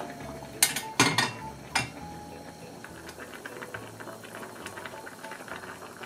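Three sharp clinks of ceramic dishware in the first two seconds, then a steady low background hum.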